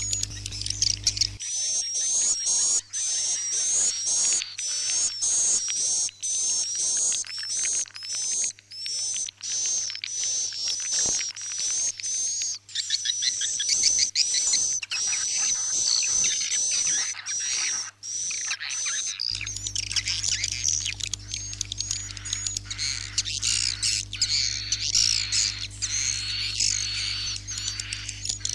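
Swiftlet roosting-call lure recording (suara inap): dense, high-pitched twittering of many swiftlets, with short hooked chirps in quick succession. It is played to draw swiftlets in to roost in a swiftlet house. A steady low hum runs under the calls for about the first second and again over roughly the last nine seconds.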